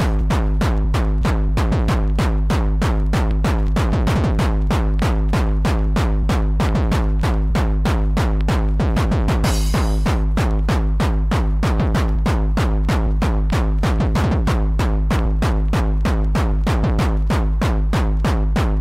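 Hardcore techno track: a fast, unbroken drum-machine kick pattern over a continuous deep bass.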